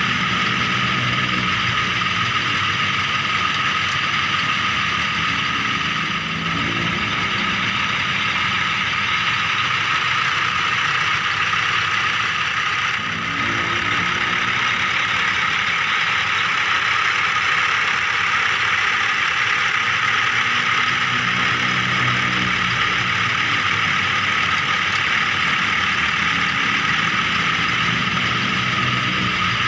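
Small electric motors and gears of a miniature remote-control toy vehicle running with a steady whine, dipping briefly twice.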